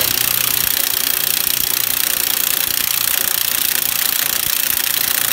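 Cordless impact gun hammering steadily at low speed on a very tight lawn mower blade bolt, which is only slowly coming loose.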